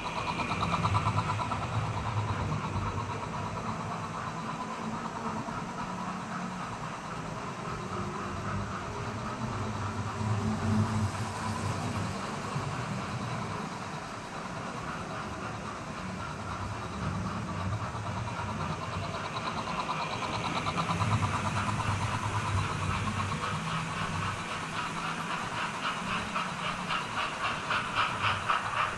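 Model GWR trains running on the layout: a steady electric-motor whine with the wheels rumbling on the track. It grows louder in the last third, with a fast, even ticking as a locomotive passes close.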